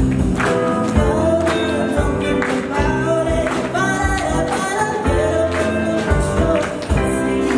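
A band playing live: singing over guitars and drums, with regular drum hits.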